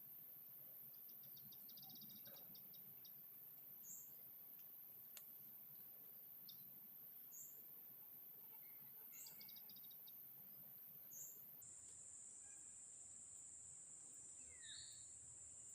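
Faint outdoor ambience: scattered short bird chirps and a couple of brief trills over a steady high-pitched whine that drops lower about three-quarters of the way through.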